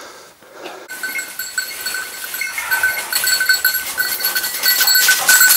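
A hunting dog's bell jingling as the dog moves through brush and dry leaves, starting about a second in and growing louder as it comes closer.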